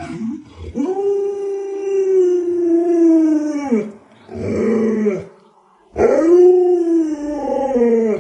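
Alaskan Malamute howling: a long howl of about three seconds that drops in pitch at its end, a short one after it, then a third that rises and falls.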